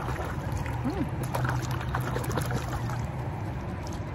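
Water dripping and lapping around a kayak, over a steady low hum.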